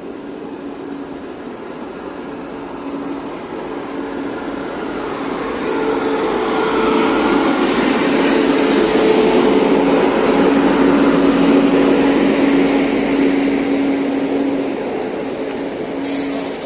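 WAP-7 electric locomotive and its passenger coaches running close past on the track: a steady hum over the rumble of wheels on rail, loudest from about six seconds in as the locomotive and first coaches pass, then easing off. A brief hiss near the end.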